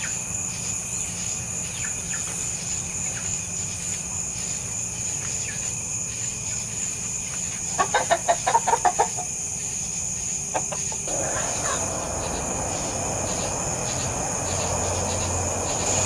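Steady chorus of night insects, crickets, with a chicken clucking in a quick run of about half a dozen clucks about eight seconds in and twice more soon after. A soft rushing noise rises in the second half.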